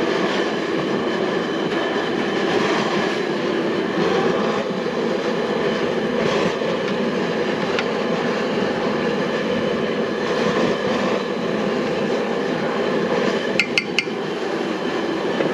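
Gas jet burner running steadily under a large aluminium stockpot of water being brought to the boil. Near the end come a few quick metallic clinks from the stirring utensil against the pot.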